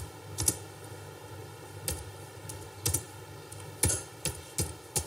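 Computer keyboard keys being typed slowly and unevenly, single clicks about a second apart at first, coming quicker near the end.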